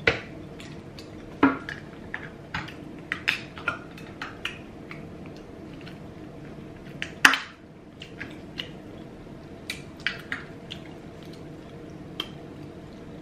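Close-miked mouth and table sounds of a mukbang: scattered short wet clicks of sipping and swallowing, and a drink can being handled. Two louder sharp clicks come about one and a half and seven seconds in.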